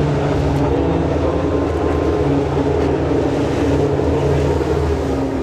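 Group C racing car engine running steadily at low revs, a deep rumble with a slight drop in pitch near the end.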